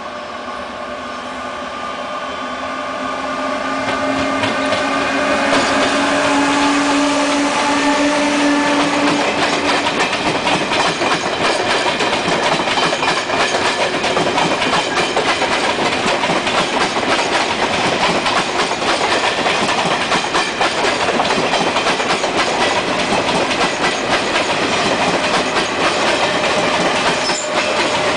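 Taiwan Railways E1000 push-pull electric express train approaching and passing close by. It grows louder over the first six seconds, with steady whining tones, then the coaches go by with a continuous rumble and rapid clatter of wheels on the rails.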